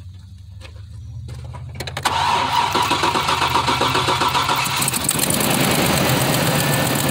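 Chevrolet 5.3 LS V8 being cranked by the starter, catching about two seconds in, then running steadily at idle. A light regular ticking rides on the running engine, and the owner says the engine has an exhaust leak.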